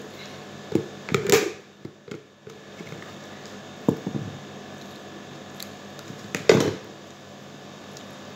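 A few short knocks and brief rustling scrapes from a plastic jar being handled at the table, the two loudest about a second and a half in and about six and a half seconds in, over a steady low hum.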